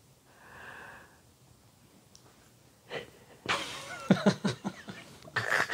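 A man and a woman break into loud laughter about halfway through, after a quiet pause with one soft breath near the start.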